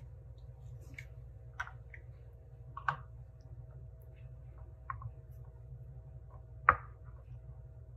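Scattered light clicks and knocks from hands working a manual lever espresso press and its glass cup, with one sharper knock about two-thirds of the way through, over a steady low hum.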